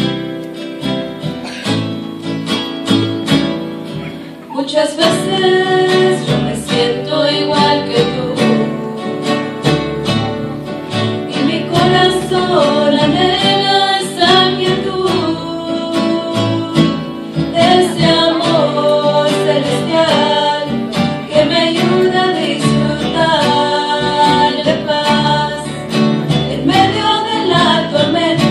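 Guitar accompaniment plays alone for the first few seconds. From about four and a half seconds in, a trio of women sings over it in Spanish.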